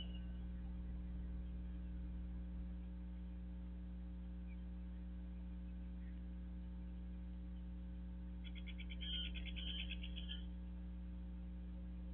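Steady electrical mains hum. About eight and a half seconds in, a rapid high trill of evenly spaced clicks lasts about two seconds.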